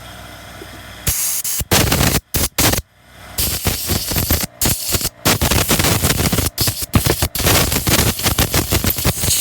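A loud hissing jet blasts in stuttering bursts, starting about a second in, blowing junk out of a Zama chainsaw carburetor's parts.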